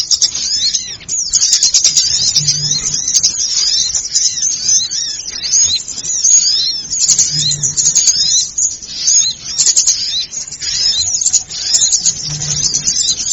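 Bird-lure recording of many small birds calling noisily at once: rapid, overlapping high chirps and twitters that never let up. A short low hum recurs about every five seconds.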